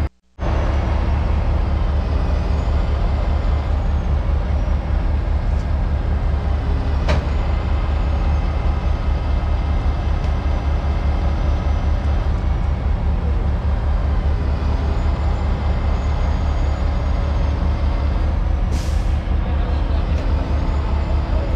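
Heavy diesel truck engine running steadily with a low, pulsing rumble, with a short hiss of air released near the end.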